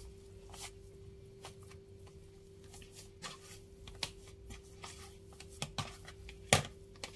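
Hand kneading a soft tofu, flour and tapioca dough in a plastic bowl: faint squishing and rubbing with scattered light clicks, and a sharper knock about six and a half seconds in. A steady faint hum runs underneath.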